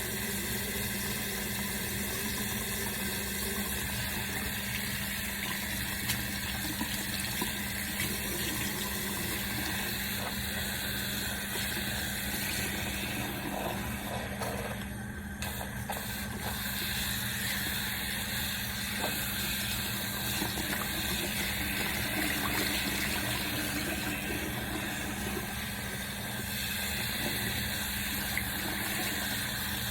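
Water running steadily from a tap, with a faint steady hum under it and a brief lull about halfway through.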